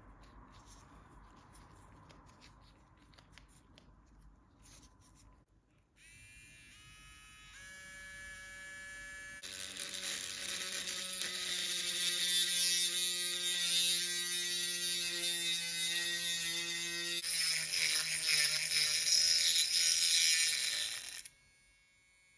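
Small electric power tool motor whining, rising in pitch in steps as it speeds up, then running steadily with a loud grinding hiss as it works against a surface, and cutting off suddenly near the end.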